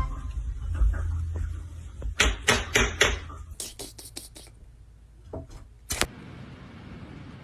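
A quick run of sharp knocks and taps, then two more single knocks, over a low rumble that stops about halfway through.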